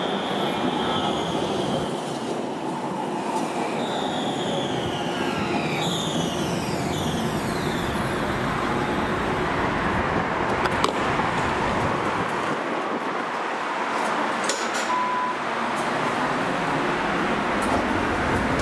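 Alstom Citadis tram pulling in and slowing to a stop, its electric drive whining in several high tones that fall in pitch as it brakes, over a steady rolling rumble. A click comes about eleven seconds in, and a short beep a few seconds later.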